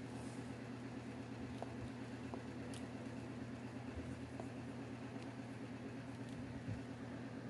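A steady low mechanical hum throughout, with a few faint, light clicks of a plastic toy stethoscope being handled.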